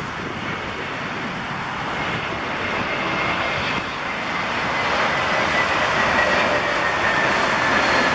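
Jet airliner's engines growing steadily louder as it passes close by, with a thin whine slowly falling in pitch, over the steady hiss of heavy rain.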